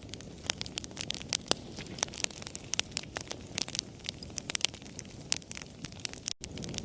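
Wood fire in a fireplace crackling, with frequent sharp pops and snaps over the low, steady rush of the flames. The sound cuts out for an instant near the end.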